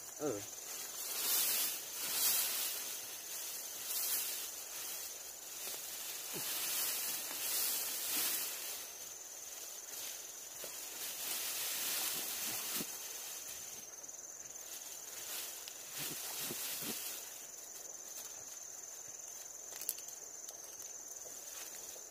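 Outdoor ambience: a steady, high-pitched insect drone with irregular bursts of rustling hiss, loudest in the first few seconds.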